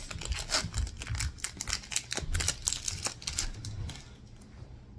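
Foil wrapper of a Pokémon TCG booster pack crinkling and tearing as it is opened by hand, a dense run of sharp crackles that thins out after about three and a half seconds.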